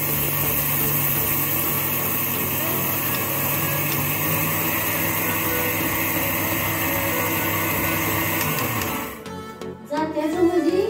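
Electric mixer grinder running steadily with its steel jar held down, grinding dry lentils. About eight and a half seconds in it is switched off and its hum falls in pitch as the motor winds down.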